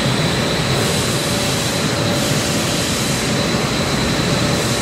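Haas ST-10 CNC lathe running, flooding its work with coolant that sprays against the inside of the door window: a loud, steady wash of noise with a thin, steady high tone.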